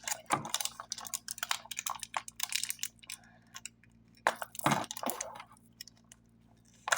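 Crinkly plastic snack wrapper being handled and pulled at to open it: irregular crackling with a heavier rustle or knock about two-thirds through.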